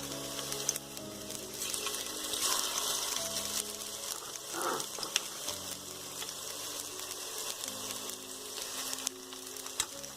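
Spinach pakoras in gram-flour batter deep-frying in hot oil, a steady sizzle.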